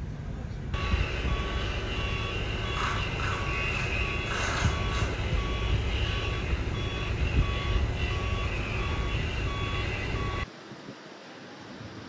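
Backup alarm of a construction vehicle, likely a telehandler, beeping in an even repeating pattern over a running engine. The beeping cuts off suddenly about ten seconds in.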